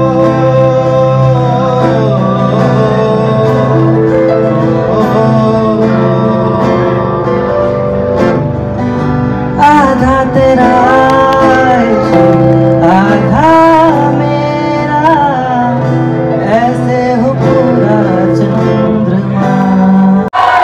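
A live band performing a song: voices singing into microphones over acoustic guitar and keyboard.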